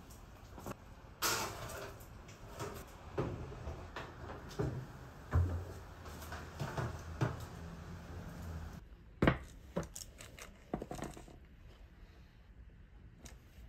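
Metal baking tray scraping onto an oven's wire rack, with scattered knocks and clatters from handling the tray and oven, and one sharp knock about nine seconds in.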